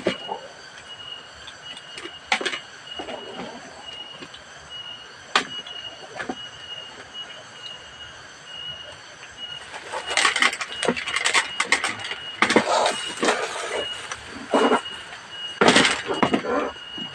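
A high chirp pulsing on and off about three times a second in the background. From about ten seconds in, bursts of loud scraping and rustling come in quick clusters, the loudest near the end.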